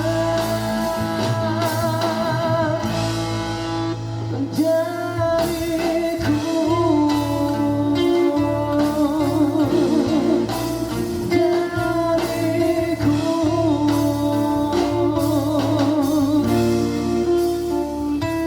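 Live band music from a busking group: a guitar-led instrumental break of a Malay pop ballad, with wavering held melody notes over steady bass and rhythm.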